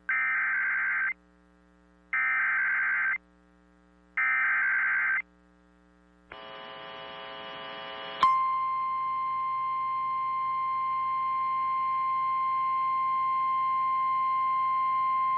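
Emergency Alert System SAME header: three one-second bursts of warbling digital data tones, a second apart. After a short rising buzz, the steady single-pitched 1050 Hz NOAA Weather Radio warning alarm tone begins about eight seconds in and holds.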